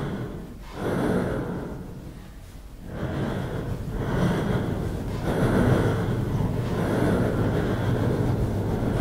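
Heavy breaths swelling and fading about once a second, over a low rumbling drone that settles into a steady hum about halfway through.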